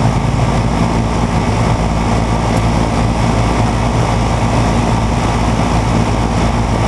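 Steady machinery running: a constant low drone with a rushing noise over it, unchanging throughout.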